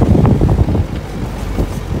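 A 4x4 safari jeep driving on a sandy dirt track, heard from its open side window: a loud low rumble of engine and tyres with wind buffeting the microphone, heaviest in the first second and easing after.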